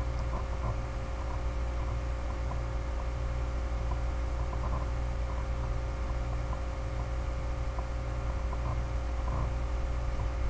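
Steady low electrical hum with several faint steady tones and a light hiss, the background noise of the recording microphone, with a few faint ticks scattered through it.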